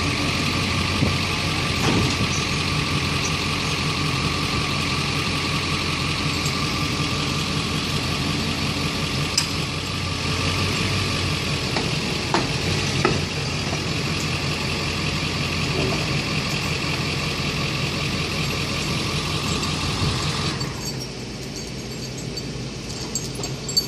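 Case backhoe loader's diesel engine running steadily at idle, with a few sharp clinks about halfway through. The engine sound drops in level and loses its upper hiss near the end.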